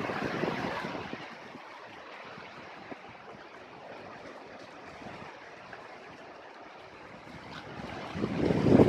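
Sea waves washing in at high tide after a typhoon. A surge fades about a second in and another builds near the end.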